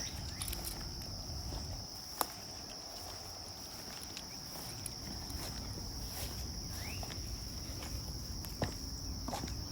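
Insects chirring in a steady, high-pitched chorus, with a few footsteps and sharp clicks, one about two seconds in and another near the end.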